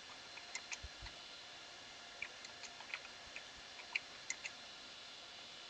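Faint, irregular clicks of computer keyboard keys being typed, about a dozen scattered over a few seconds.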